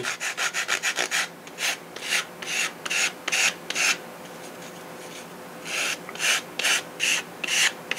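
80-grit sandpaper rubbed by hand over a soft balsa block, a scratchy rasp in quick strokes of about three a second. The strokes stop for about two seconds midway, then start again.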